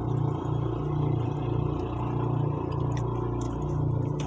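A small engine running steadily at a constant speed, a low even hum with overtones.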